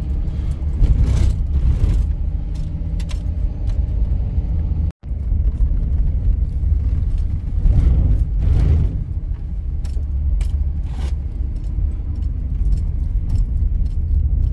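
Road noise inside a moving vehicle's cab on a dirt lane: a steady low rumble of engine and tyres, with light rattles and clinks now and then. The sound drops out briefly about five seconds in.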